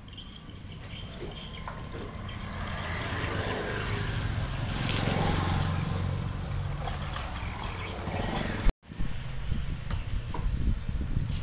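Low engine rumble of a passing motor vehicle, swelling to its loudest about halfway and then fading. The sound drops out abruptly for an instant near the end, and a few faint clicks follow.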